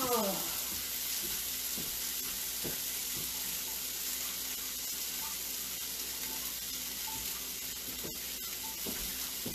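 Chicken searing in a hot pan: a steady sizzle, with a few light clicks.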